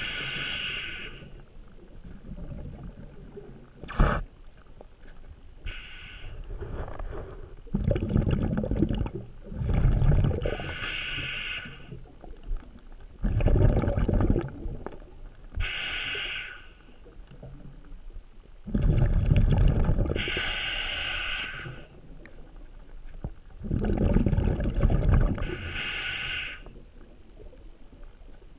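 A scuba diver breathing through a regulator, heard underwater. Hissing draws alternate with rumbling bursts of exhaled bubbles, about five breaths in all. There is one sharp click about four seconds in.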